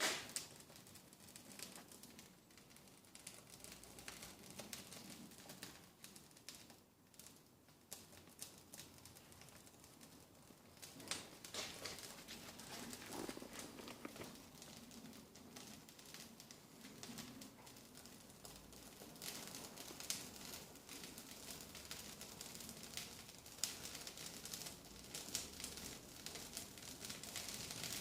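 Faint crackling and rustling as a fire is lit in a barbecue fireplace: paper and kindling catching. The crackles grow denser about halfway through.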